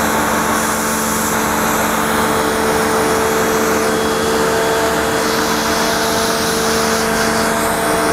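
Motoyama 135-bar electric high-pressure washer running steadily: its pump motor hums under the loud hiss of the water jet spraying onto a motorcycle.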